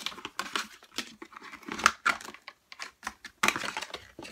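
Rustling, scraping and light knocks of a paperboard headphone retail box being opened and handled, with a couple of sharper knocks partway through.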